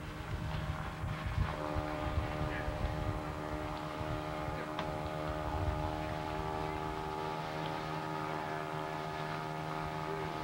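A steady motor drone starts about one and a half seconds in and holds an even pitch, with wind buffeting the microphone mostly in the first half.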